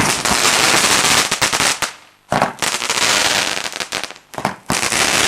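Fireworks going off: a sudden loud bang, then continuous hissing thick with rapid crackling. It cuts out briefly about two seconds in, starts again, and breaks into a string of separate sharp cracks near the end.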